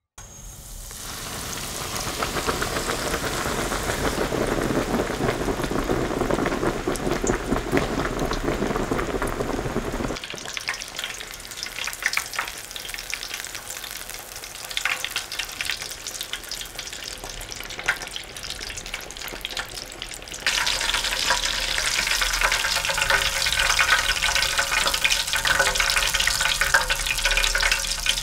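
Panko-breaded pork cutlet (tonkatsu) deep-frying in hot oil: a dense, steady crackling sizzle with a few sharper pops. It drops quieter about ten seconds in and grows louder again about twenty seconds in.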